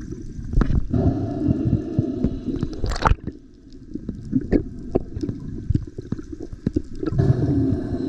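Underwater sound picked up by a camera in its housing: a low rumble of moving water with scattered clicks and pops, and one sharper, louder pop about three seconds in. Faint steady tones fade out in the middle and return near the end.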